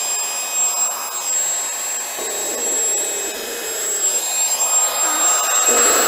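Handheld P9 dust mite vacuum cleaner running as it is pushed over a foam mattress: a steady rush of air with a thin high whine on top. The sound shifts slightly about two seconds in and again near the end.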